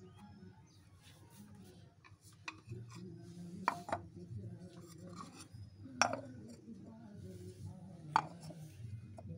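Clay lids being set on the mouths of terracotta pots: clay knocking on clay in four short, sharp clinks.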